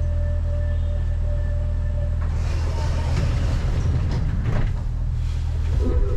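Uijeongbu light-rail train, a rubber-tyred VAL 208, running along its guideway as heard from inside the car. A steady low hum carries throughout, with a thin whine that fades out about two seconds in, followed by a louder rushing running noise.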